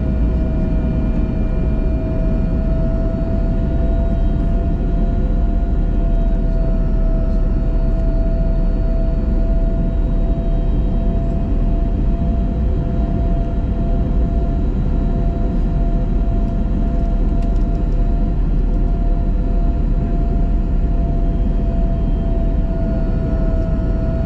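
Airliner cabin noise on the descent to landing: a steady low roar of engines and airflow with a constant hum riding on top.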